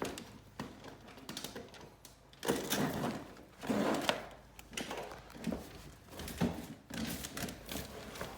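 Leather wallpaper being pressed and worked by hand into a corner: irregular rustling scuffs with a few soft knocks and clicks.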